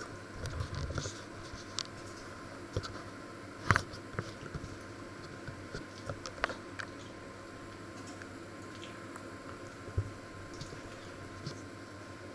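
Electric oven running with a faint steady hum, with scattered small ticks and crackles throughout and a sharper knock about four seconds in.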